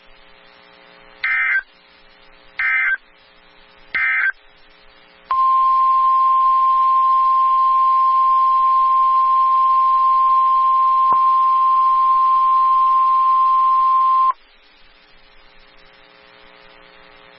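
Emergency Alert System / NOAA Weather Radio signalling: three short, harsh bursts of SAME digital data tones, the length of the end-of-message code, then about a second later a steady 1050 Hz weather-radio alert tone held for about nine seconds before it cuts off. A faint low hum of the radio feed runs underneath.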